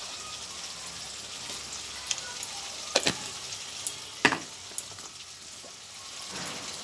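Onion-tomato spice masala sizzling steadily in oil in a kadai, with two sharp knocks about three and four seconds in and a few lighter ticks.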